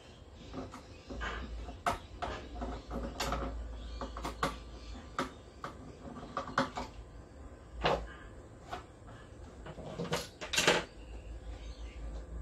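A screwdriver turning screws in the plastic back of a flat-screen TV, with irregular clicks, knocks and scraping as the casing and its stand are handled. Two louder knocks come about ten seconds in.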